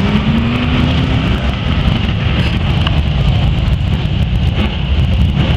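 BriSCA Formula One stock cars' V8 engines running loud and steady as the cars circulate on the track.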